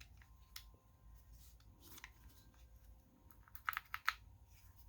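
Faint, scattered clicks and light handling noises from a cordless impact driver being turned over in the hands, with a short run of sharper clicks near the end.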